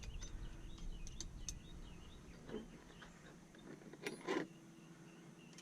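Scattered light metallic clicks and clinks of a wrench being fitted to a bolt, with a couple of louder knocks about two and a half and four seconds in.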